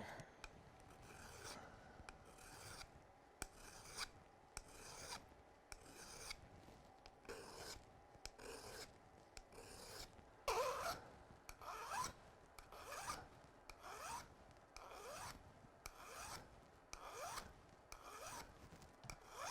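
Hand file rasping on steel crampon points, the crampon braced against the leg: repeated strokes about one a second, several in the second half with a squeal that rises in pitch.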